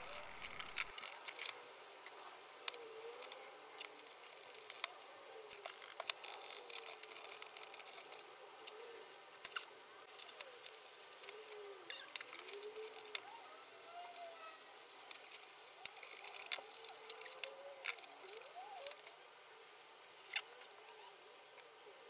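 Sped-up sound of brushing and handling greasy Shimano Deore XT rear derailleur parts in soapy water. It is fairly faint: scattered scratchy clicks and ticks mixed with short squeaky glides.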